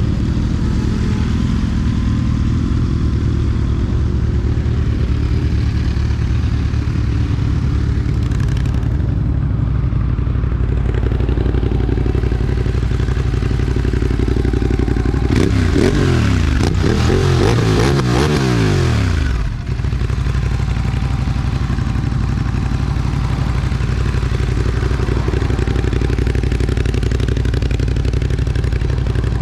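Honda CBR600F4's inline-four engine running steadily under riding. For a few seconds past the middle the note swells and sweeps up and down in pitch, then briefly drops away before settling back.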